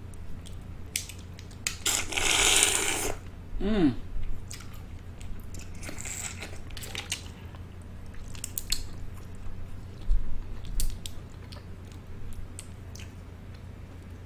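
Close-miked eating of a crawfish and sausage boil: wet chewing and biting with many small clicks and smacks. About two seconds in comes a louder rushing sound lasting about a second, followed by a brief hum.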